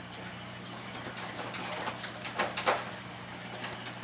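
Light handling noise of soft fuel-line tubing being threaded through a small aluminum fuel-tank breather fitting: a few faint scrapes and clicks in the middle, over a steady low hum.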